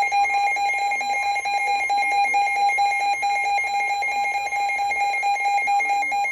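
Emergency Alert System attention tone: a loud, steady electronic alarm tone cutting in over a weather radio broadcast. It signals that a new severe thunderstorm warning is about to be read.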